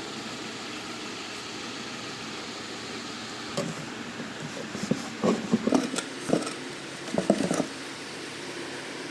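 Steady hiss, then from about three and a half seconds in, a run of irregular knocks and clatters as objects are handled and set down.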